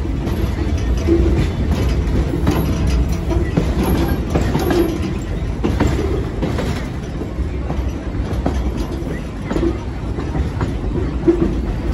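Railroad car's steel wheels rolling on the rails with a steady low rumble and a clickety-clack of knocks, heard from the open end platform of the moving car.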